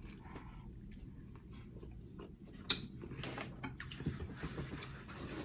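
Faint eating sounds: soft clicks and rustles of chewing and handling jerk Cornish hen, with one sharper click a little under three seconds in.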